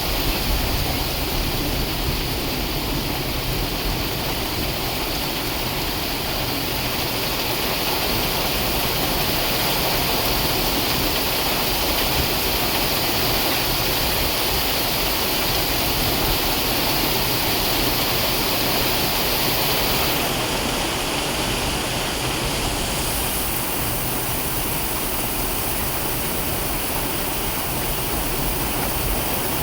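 Heavy rain falling steadily in a thunderstorm, an even hiss without letup.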